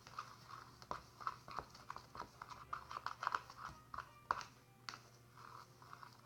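Gooey flour-and-toothpaste dough being stirred in a bowl: irregular sticky squelches and scrapes, a few a second, with a couple of sharper clicks past the middle.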